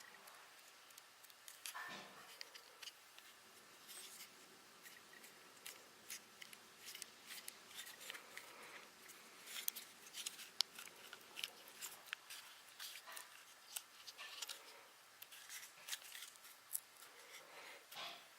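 Fingers pressing and rubbing freshly heated textured grip tape onto a polymer pistol grip: faint, irregular small clicks and crackles of handling, a little louder about halfway through.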